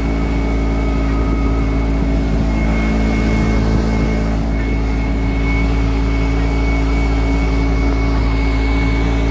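Motorcycle engine of a sidecar tricycle running steadily at cruising speed, with a constant low rumble underneath.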